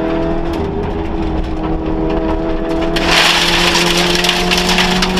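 Vauxhall Nova rally car's engine heard from inside the cabin, pulling under load with its revs climbing slowly. About three seconds in, a loud hiss comes in over the engine.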